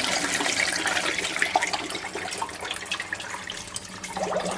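Cold water pouring in a steady stream from a kettle into a stainless steel stockpot holding a whole chicken, splashing on the water's surface as the pot fills.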